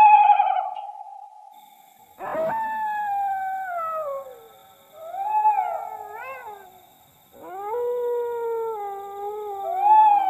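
Dogs howling: long drawn-out howls that slide slowly down in pitch, one bout beginning about two seconds in and another about seven seconds in, with shorter wavering calls between them.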